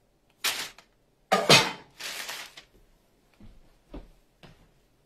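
Round metal cake pans knocking and clattering on a wooden table as baked red velvet cake layers are turned out onto parchment paper: a few sharp knocks in the first two seconds, then three fainter taps near the end.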